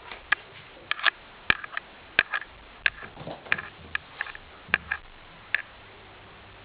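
A cat batting a toy ball around a hard floor: irregular sharp taps and clicks, about a dozen in five seconds, stopping a second before the end.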